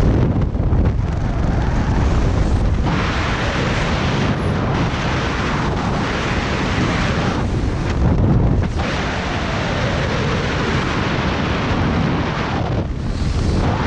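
Air rushing over a helmet camera's microphone during parachute canopy flight: a loud, low rumbling wind noise that rises and falls in gusts, with several brief lulls as the canopy turns.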